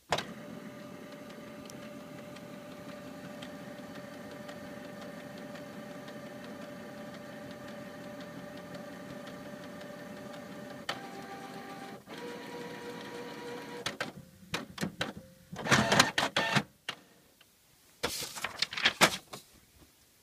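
Canon PIXMA MX340 inkjet printer printing a page. It starts suddenly into a steady mechanical whir with a few held tones, shifts pitch twice about eleven and twelve seconds in, then gives a run of louder short bursts of mechanical noise in the last few seconds as the page is finished.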